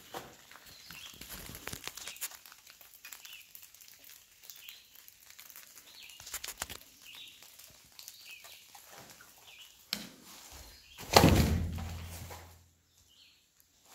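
Footsteps and scattered small clicks on debris, with faint bird chirps in the background and a loud close-up rustle about eleven seconds in.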